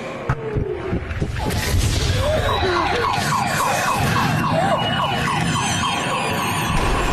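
A loud, distorted jumble of shopping-centre noise, with thuds, clatter and sliding, wailing tones piled on top, growing louder over the first couple of seconds. It is a designed sensory-overload soundscape meant to show how an autistic person experiences a busy place.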